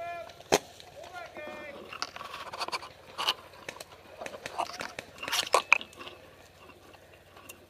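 Footsteps crunching through dry brush, with twigs and branches rustling and snapping irregularly. One sharp crack comes about half a second in. Faint voices can be heard in the distance early on.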